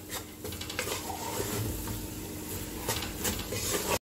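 A spoon stirring ground egusi as it fries in red palm oil in a metal pot: scattered scrapes and soft taps over a steady frying hiss, stopping abruptly at the end.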